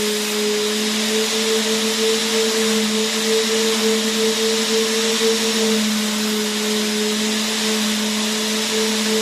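Vacuum cleaner motor running steadily: an even airy hiss with a constant low hum underneath.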